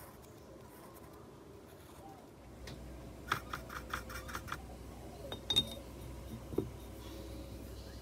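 Small clicks and taps from handling watercolour painting tools: a quick run of about half a dozen light clicks, then a few sharper clinks, one briefly ringing, and a soft knock, over a faint low hum.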